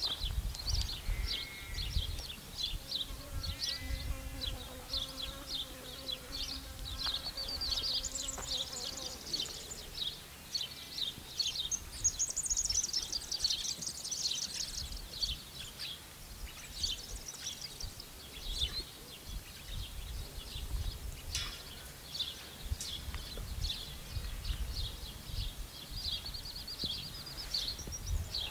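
Outdoor farm ambience: many small birds chirping in quick, repeated calls, with wind gusting on the microphone. A faint drawn-out hum sounds for several seconds in the first third.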